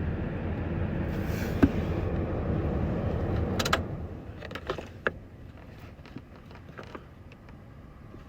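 Scattered clicks and knocks around a truck's cab, over a low steady background noise that drops away about four seconds in. This is the lead-up to a cold start of a 1996 Ford F-250 7.3L diesel, which does not crank within this stretch.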